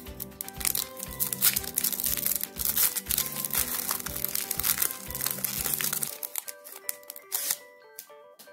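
Foil wrapper of a Pokémon trading card booster pack crinkling and tearing as it is pulled open by hand, the crinkling dying away about six seconds in. Background music plays underneath.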